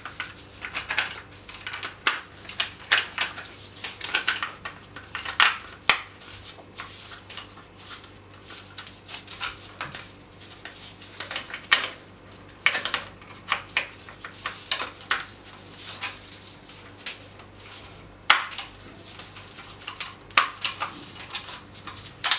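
Steel parts of a Tigr (civilian SVD Dragunov-pattern) rifle clicking, clinking and scraping against each other in irregular bursts as the rifle is fitted back together by hand.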